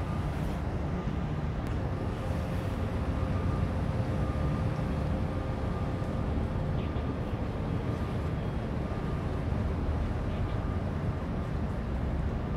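Steady low rumble of harbour-side outdoor ambience, with a faint on-and-off higher hum.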